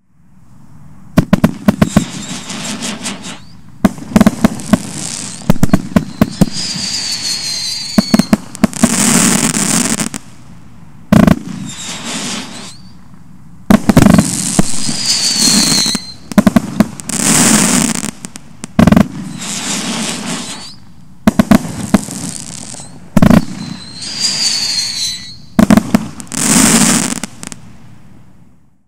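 A 500-gram, 36-shot consumer fireworks cake firing its full sequence: volleys of sharp launch and burst reports every few seconds, each followed by a second or two of loud crackling. Short whistling tones sound three times.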